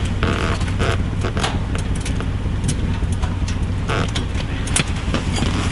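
A steady low hum, with scattered light clicks and rustles from small fishing tackle being handled.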